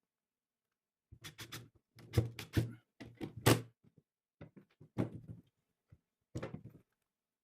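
Irregular wooden knocks and short clattering bursts, a dozen or so over several seconds, as pieces of wood are handled and tapped together.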